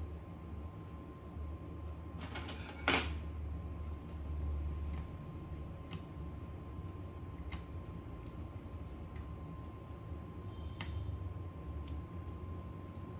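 Scattered light clicks and taps of small parts or tools being handled on a repair bench, with one louder click about three seconds in. Under them runs a steady low hum and a faint steady high tone.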